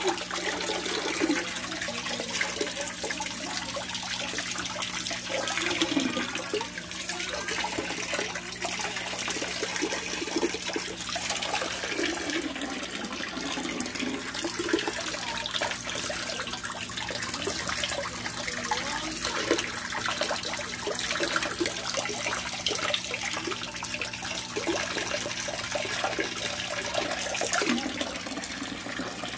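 Water pouring steadily from the outlet pipe of a DIY oyster-shell filter, splashing into a koi pond.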